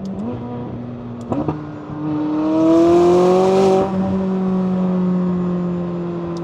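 Sports car engine accelerating hard at highway speed: its note climbs in pitch over about two seconds with a loud rush, then eases off and slowly falls, over a steady engine drone. Two sharp clicks come about a second and a half in.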